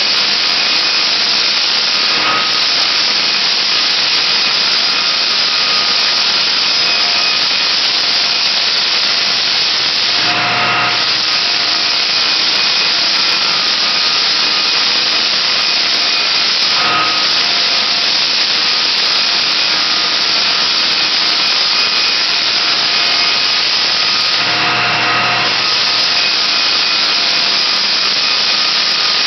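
Floor sander with a dust-extraction hose running across a bare hardwood floor: a loud, steady sanding noise with a faint steady whine in it. The tone shifts briefly twice, about ten and twenty-five seconds in.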